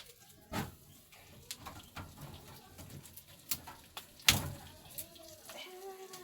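A bird calling faintly, with scattered sharp clicks and knocks, the loudest a little past four seconds in.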